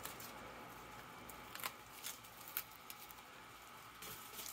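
Faint crisp snapping and rustling of outer lettuce leaves being torn off a harvested head, with a few sharp cracks between about one and a half and two and a half seconds in.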